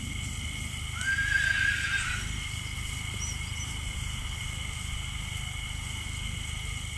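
A horse whinnies once, about a second in, for about a second.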